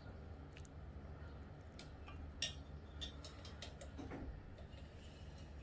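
Light kitchen handling: a few short clicks and taps about midway, from a steel mixing bowl and a ceramic plate as balls of tuna mixture are rolled by hand and set down. A faint low hum runs underneath.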